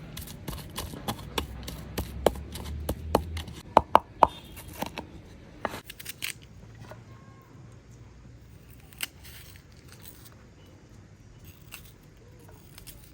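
A quick, irregular run of sharp cutting clicks, like snipping or chopping, for about six seconds, loudest around the middle; then only a few scattered clicks.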